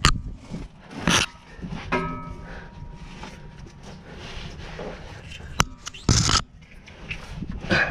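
A full-size spare tire and wheel being wrestled up by hand under a truck bed, scraping and knocking against the steel frame and the new welded mount: sudden knocks at the start, about a second in, twice around five to six seconds in, and near the end, with shuffling and scraping between them.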